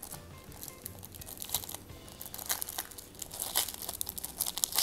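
Thin clear plastic cover crinkling and crackling as hands open it around a sheet of plastic letter tiles, in irregular sharp crackles, with louder ones about three and a half seconds in and at the very end.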